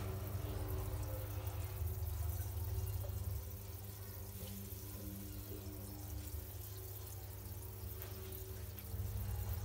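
Water bubbling and trickling in a fish-breeding tank, over a steady low hum. It turns quieter about a third of the way in and louder again near the end.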